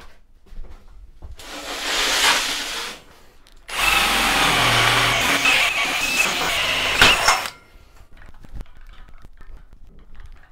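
Cordless drill boring a hole into a steel box-section workbench frame: a short run about a second and a half in, then a longer steady run from about four seconds to seven and a half that ends with a sharp knock.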